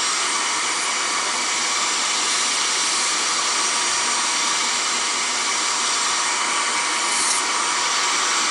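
Vacuum cleaner running steadily, its nozzle held into the radio chassis to suck out dust.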